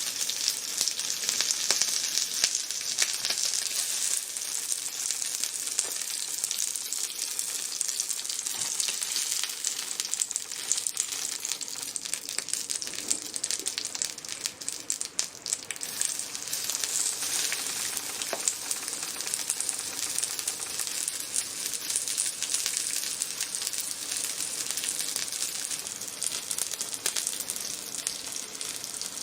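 Food sizzling and crackling on a hot lava-stone grill plate: a steady frying hiss with fine pops throughout, which dips briefly about halfway through.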